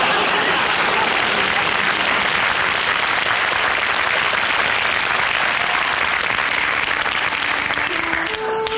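Studio audience applauding, a long steady round that dies down near the end.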